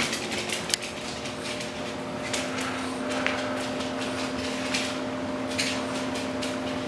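A French bulldog's claws tapping and clicking on a hardwood floor, with a tennis ball knocking and rolling on the boards, as the dog runs with the ball. Under it is a steady low hum.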